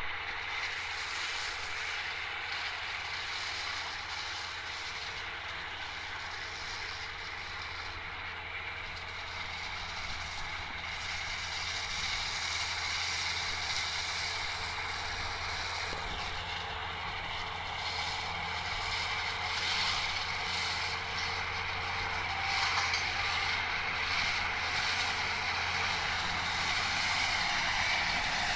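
Tractor engine running steadily under load while its front and side disc mowers cut grass, a steady drone with a wide whirring hiss that grows louder as the machine approaches.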